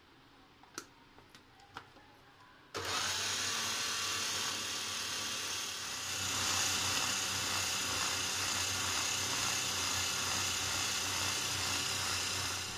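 Electric mini chopper grinding mutton mince with roasted gram flour into a thick paste. After a few light clicks, the motor starts suddenly about three seconds in and runs steadily for about ten seconds.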